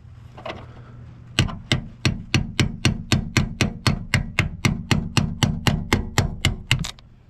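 Hammer tapping a punch from below to drive a part off the door, about eighteen sharp metal strikes at roughly three a second, starting about a second and a half in and stopping near the end.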